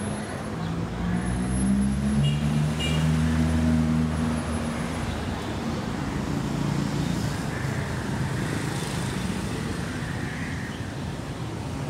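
City street traffic: a motor vehicle's engine rises in pitch and is loudest in the first few seconds as it passes, then a steady hum of road traffic.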